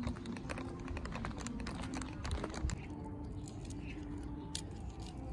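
A quick run of light clicks and taps, thinning out about three seconds in, over faint background voices.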